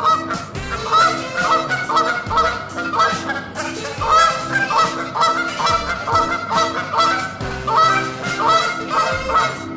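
Canada geese honking in a quick, repeated series over background music.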